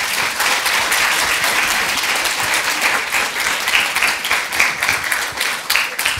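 An audience applauding, steady clapping from many hands that begins to thin out near the end.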